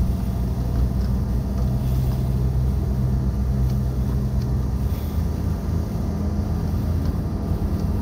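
Heavy diesel truck engine running steadily at an even pitch, with strong wind buffeting the microphone.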